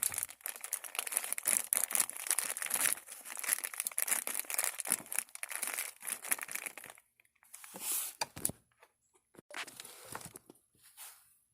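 Small plastic bag crinkling as it is opened by hand: dense rustling for about seven seconds, then a few scattered crinkles.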